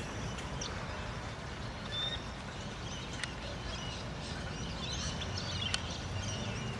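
Steady low outdoor rumble with faint, scattered bird chirps.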